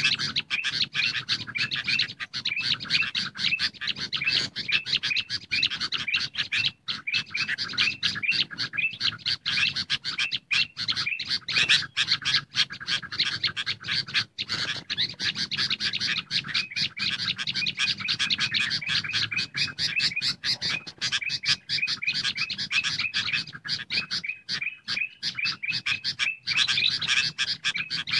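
A bird-trapping lure recording of agitated, noisy sooty-headed bulbul chatter mixed with ruby-throated bulbul calls. The calls run as rapid, unbroken strings of short, high notes, several a second, with no pause.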